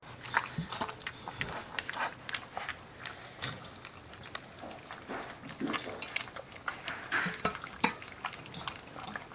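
Twenty-two-day-old Newfoundland puppies lapping and slurping formula from a dish, with many irregular clicks and clinks against the dish.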